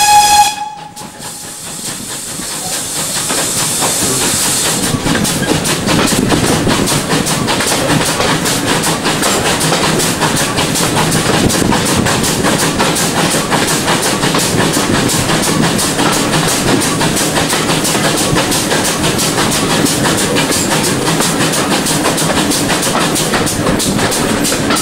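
Steam train hauled by GWR 5700 class pannier tank 5786. The locomotive's steam whistle cuts off under a second in, followed by a hiss of steam for a few seconds. Then the moving train runs with a steady, quick, regular beat.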